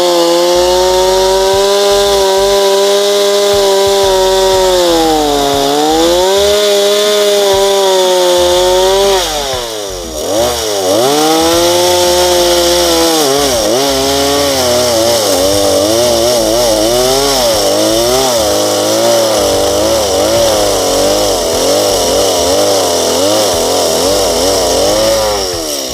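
Two-stroke chainsaw running at high revs and cutting wood, its pitch sagging under load about five seconds in and dropping sharply near ten seconds before revving back up. Through the second half the pitch wavers continually as the chain bites, and it eases off at the end.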